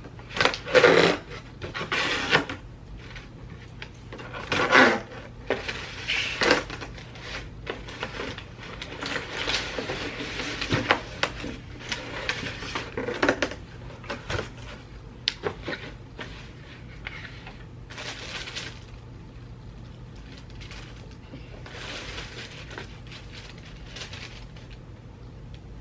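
Packaging being handled and opened: irregular rustling and rubbing with light knocks, busiest in the first half.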